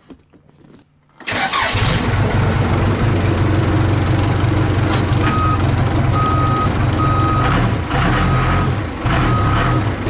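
A Case backhoe's diesel engine is started about a second in, after a new fuse has gone into the clutch-cutout circuit, and then runs steadily. From about halfway through, a high-pitched alarm beeps five times in an even rhythm.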